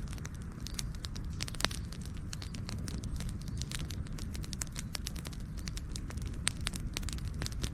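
Wood campfire burning, with frequent sharp, irregular crackles and pops over a low steady rumble of the flames.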